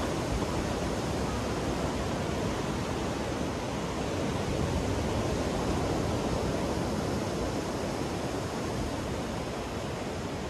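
Ocean surf washing onto a sandy beach: a steady rush of breaking waves that swells a little midway.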